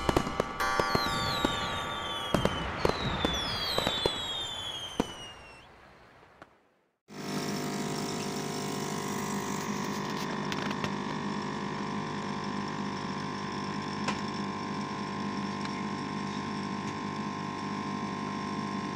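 Fireworks sound effects, falling whistles and pops, fade out over the first six seconds. Then, after a brief silence, a coffee machine runs with a steady hum as it pours coffee into a cup.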